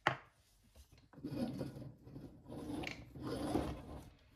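Aluminium pressure cooker lid being twisted open, its rim scraping and grating against the pot's rim in several uneven rasping strokes, after a sharp click at the start.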